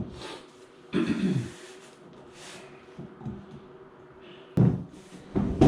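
A few dull knocks and bumps from handling the plastic parts of a poly lawn roller, with a short breath or grunt about a second in.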